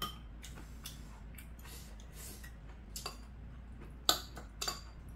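Metal chopsticks clicking and scraping against a rice bowl while mixing rice, a few scattered clinks with the loudest about four seconds in.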